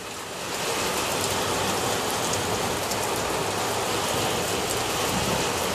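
Steady rain falling, an even hiss through the whole stretch.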